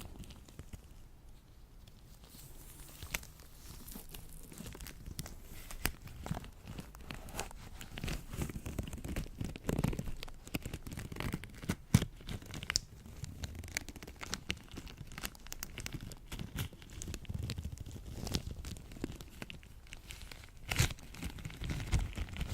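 Latex-gloved hands working sticky lotion: tacky crackling made of many small, irregular pops, with one sharper snap about twelve seconds in.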